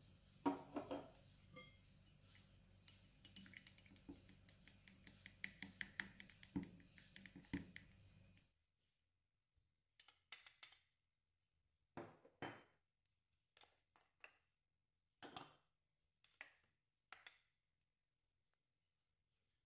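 Faint clinks and scrapes of stirring yeast into warm water in a drinking glass, a quick run of many small ticks. After that, near silence broken by a few separate soft knocks and scrapes of a wooden spoon on small ceramic dishes as powdered milk and sugar are tipped onto flour in a glass bowl.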